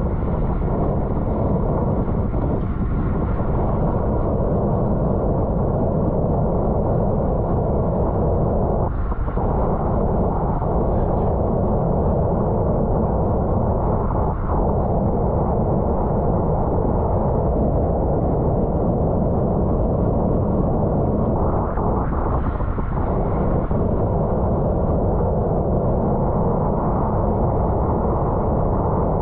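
Steady wind rush over a bike-mounted camera's microphone while riding in a bicycle race, with three brief bumps.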